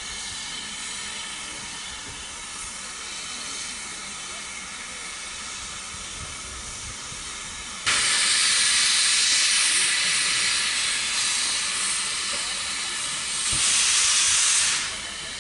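Steam locomotive venting steam with a hiss that cuts in suddenly and loudly about halfway through, then swells louder again near the end before falling back.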